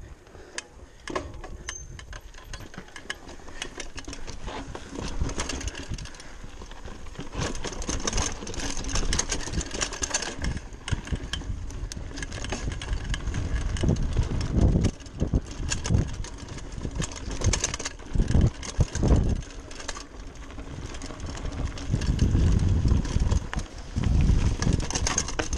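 Giant Talon 3 29er hardtail mountain bike ridden fast over a rocky, rooty dirt trail: tyres rolling on dirt and stones with a steady run of rattles and clicks from the bike, and heavy low rumbles of wind on the camera microphone in several stretches.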